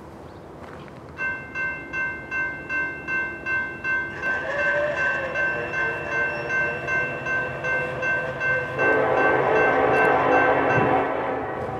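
Horn of an approaching EMD SD70ACE diesel locomotive sounding over a level-crossing bell. The bell starts about a second in, ringing in even strikes about two and a half a second. The horn chord comes in faintly about four seconds in, turns much louder and fuller about nine seconds in, then eases near the end.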